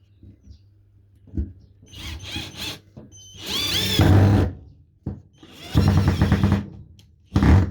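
Small 3.6 V cordless screwdriver driving a screw in several short bursts of motor whine, the pitch bending as it takes the load.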